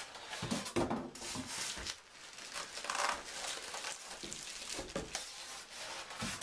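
Packaging of a computer case being handled during unboxing: irregular rustling and crinkling, with a few knocks.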